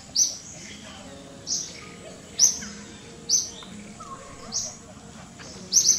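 A bird calling outdoors, repeating a short, high chirp about once a second; the last call is doubled.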